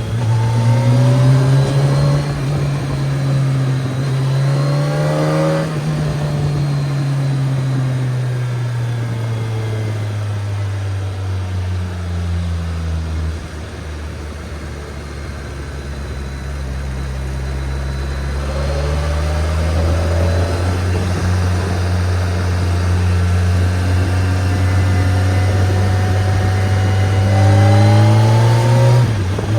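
BMW K1300S inline-four engine under way. It pulls up through the revs for about five seconds, winds down slowly, holds low and steady for a few seconds, then builds again, with a short dip near the end.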